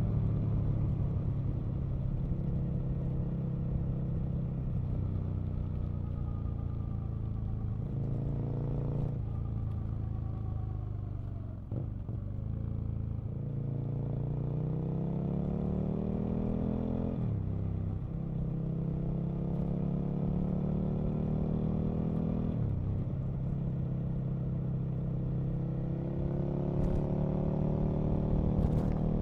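Aprilia RSV Mille's V-twin engine under way on the road, its revs climbing and then dropping sharply several times as the rider shifts and eases the throttle. There is a short throttle-off dip about twelve seconds in, and the revs pull up again toward the end.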